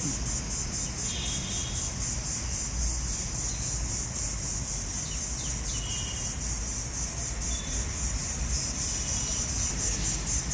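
A chorus of insects chirring in a high, fast, steady pulse.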